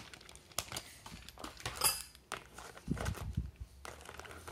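Handling noise: metal tools and driver bits clicking and clinking against a tool belt and its pouches. There is a brighter metallic clink about two seconds in and a few dull knocks soon after.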